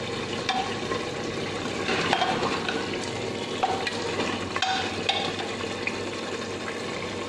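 Mutton, arbi and spinach masala sizzling and bubbling in a pressure-cooker pot as it is fried down, while a metal ladle stirs it. The ladle scrapes and clinks against the pot now and then.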